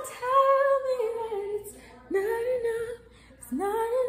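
A woman singing alone, unaccompanied: three held notes, each sliding up into pitch and sustained for about a second.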